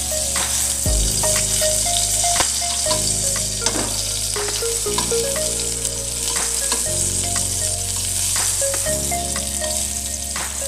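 Sliced onion sizzling in hot oil in a metal wok, with a metal spatula scraping and tapping the pan as it stirs. Background music runs underneath, with low bass notes that change every couple of seconds.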